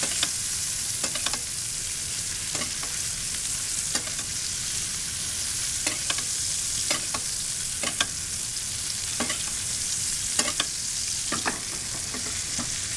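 Garlic butter sizzling steadily in a stainless steel pan as two New York strip steaks are basted with a metal spoon, the spoon clicking against the pan now and then.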